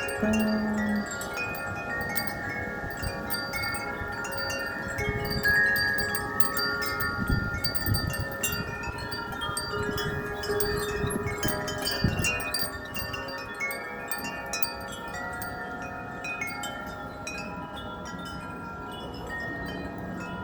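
Several metal wind chimes ringing continuously in gusty wind, many overlapping notes struck over and over. The ringing is busiest in the first half and thins out toward the end as the gust eases.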